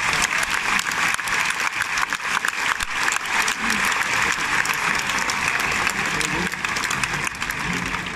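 Large crowd in a packed bullring applauding, a dense, steady clapping.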